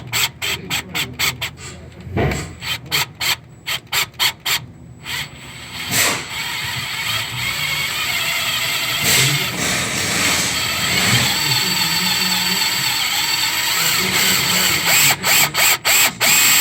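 A hand ratchet clicks quickly for about five seconds as it works a seized EGR bolt. A drill then runs steadily for about eight seconds, and short clicks come again near the end.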